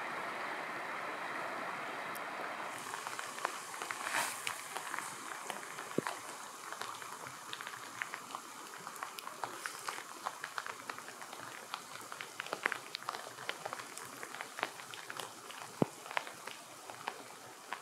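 River rapids rushing steadily, then from about three seconds in, rain: a steady hiss with many scattered sharp ticks of drops landing close by.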